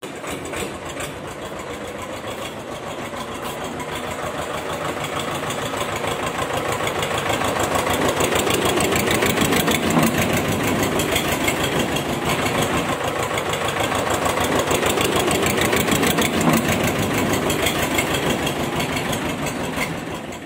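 Tractor engine running with a fast, steady chug, growing louder over the first eight seconds or so and fading near the end.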